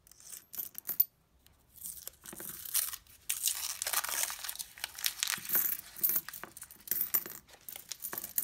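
Paper coin-roll wrapper being torn open and crinkled around a roll of nickels, with a few sharp clinks of nickels about a second in and coins starting to tumble out near the end.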